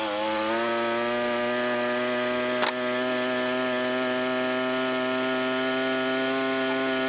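Wood-Mizer LT35 band sawmill running through a cut in a pine log: a steady machine whine from the engine and band blade under load, holding one pitch, with a single sharp click about two and a half seconds in.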